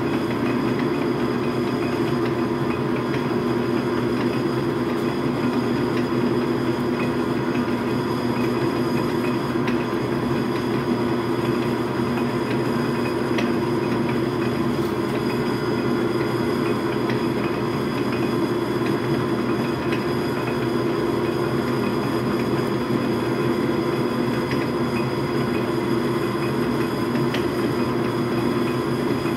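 Logan metal lathe running steadily at constant speed while a centre drill held in the tailstock is fed by hand into the spinning workpiece.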